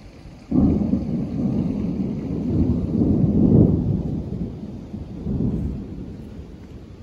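Thunder from a close lightning strike: a sudden crack about half a second in, then a deep rolling rumble that swells twice and slowly fades.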